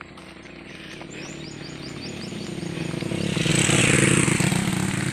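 A motor vehicle's engine approaches, growing steadily louder to a peak about four seconds in and then starting to fade as it passes. Early on, a quick run of short high chirps sounds over it.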